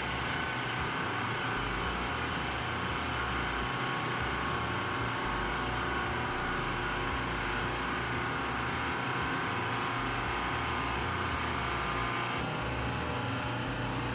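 SCE Versa electric cold-water pressure washer, its electric motor and General Pump running steadily at misting pressure, with the hiss of disinfectant atomizing from the misting nozzle. The high hiss drops away near the end.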